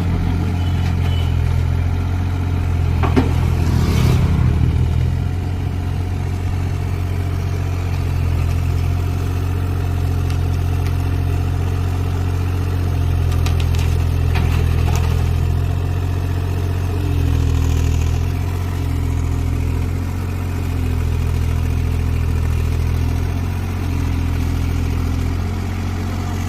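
Kubota U30 mini excavator's diesel engine running steadily, its note rising and dropping as the hydraulics take load while it digs and loads. A few short clattering knocks come about 3–4 seconds in and again around 13–15 seconds in.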